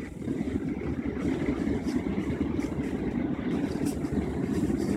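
Mercedes-Benz GLS450 SUV wading through about 18 inches of water: a steady low rumble of engine and water.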